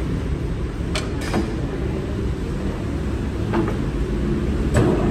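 Mazak manual lathe running with a steady low rumble while its headstock speed levers are shifted to the next spindle speed, with a few short metallic clicks and clunks from the levers and gears.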